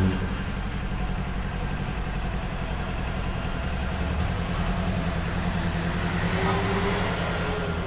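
Motorcycle engine and exhaust running steadily at low revs, with a fast, even exhaust pulse.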